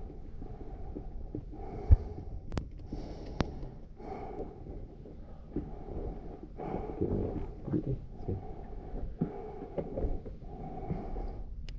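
Breathing, in and out in slow swells, with a sharp knock about two seconds in and two brief clicks soon after.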